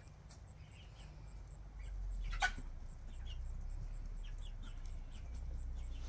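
Faint short chirps from birds in the poultry run, and one sharp knock about two and a half seconds in, over a low rumble.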